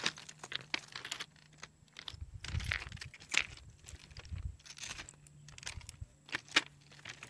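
Footsteps crunching on railway track ballast, the loose stones clicking and shifting underfoot at an irregular pace, with a few duller thuds.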